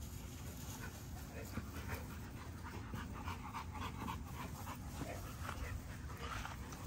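XL bully dogs panting quickly as they run and play on grass, in short repeated breaths.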